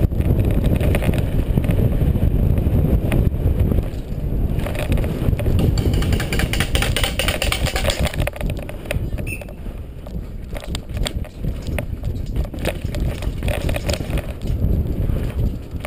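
Downhill mountain bike ridden fast over a dirt trail: heavy wind rumble on the camera microphone, with tyres on dirt and many sharp rattles and knocks from the bike over bumps, and a louder hiss about six to eight seconds in.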